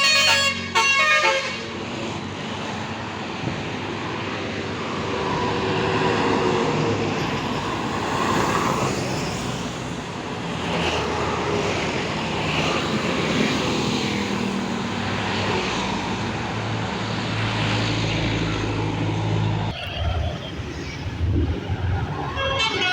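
A bus's multi-tone telolet (basuri) musical horn, playing a tune that cuts off about a second in. Then comes loud engine and road noise of a bus moving through, with a deep engine rumble swelling near the end before the horn tune starts again.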